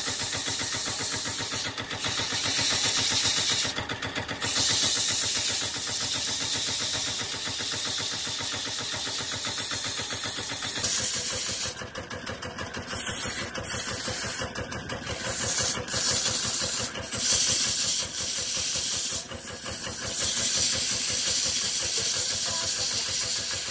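The drive of a belt-driven wood lathe runs steadily with a fast, even pulse while sandpaper hisses against the spinning wooden cylinder. The hiss breaks off briefly several times as the paper is lifted and shifted.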